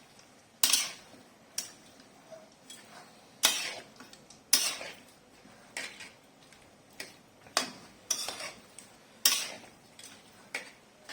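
A cooking utensil clanking and scraping against a pot as chicken pieces and vegetables are mixed, in irregular strokes about once a second, some much louder than others.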